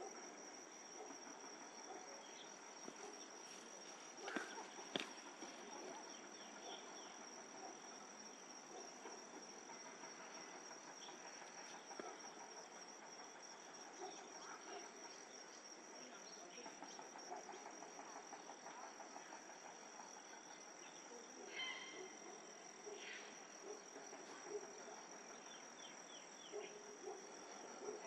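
A faint, steady, high-pitched insect trill, like a cricket, over quiet background noise. There are two sharp clicks about four and five seconds in, and a few short high chirps later on.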